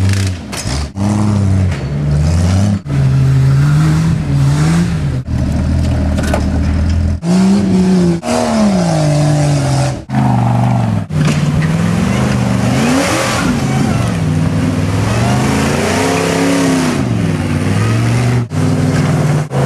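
Off-road vehicle engines revving up and down over and over, throttle blipped as rigs crawl rock ledges, in a string of short clips cut one after another. A rushing noise builds under the engine in the second half.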